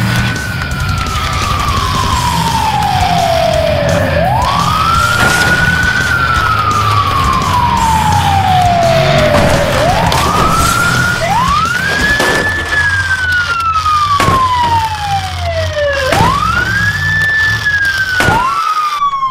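Police siren wailing: each cycle rises quickly, then slides slowly down in pitch over about four seconds, repeating again and again, over background music.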